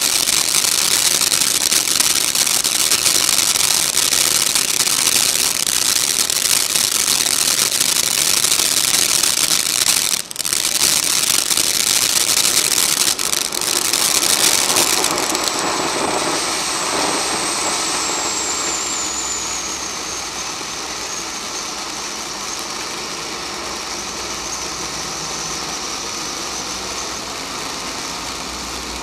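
Black Cat Bellagio firework fountain burning: a loud, steady hiss of a spark jet, with a brief dip about ten seconds in. Past halfway it gets quieter and a thin high whistle slides slowly down in pitch.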